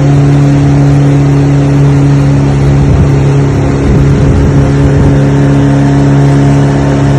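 An engine running steadily at one constant speed: a loud, even low hum.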